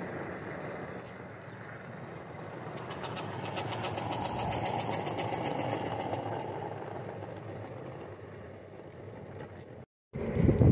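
A miniature railway train running on the track, growing louder to a peak in the middle and fading again as it passes. A fast, even ticking of about seven a second runs through the loudest part.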